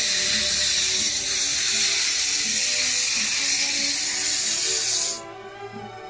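Loud hiss of steam venting from a narrow-gauge steam locomotive, cutting off abruptly about five seconds in. Background music plays underneath.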